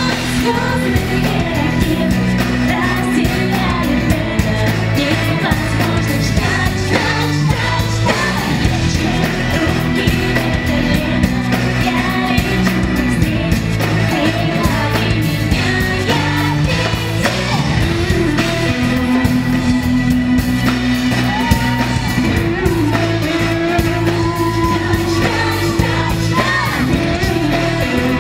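A pop-rock song with a singing voice over drums, bass and guitar.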